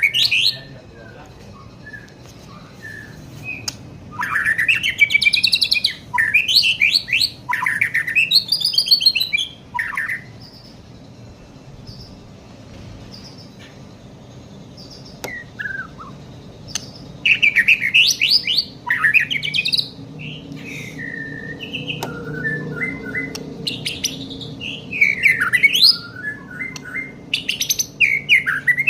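Young white-rumped shama singing loud groups of fast, varied whistled phrases that sweep up and down in pitch, with pauses of a few seconds between the groups.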